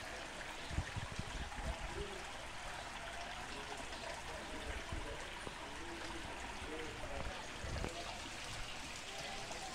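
Steady hiss of muddy rainwater runoff streaming across bare dirt ground after heavy rain. A few dull low thumps come about a second in and again near the end.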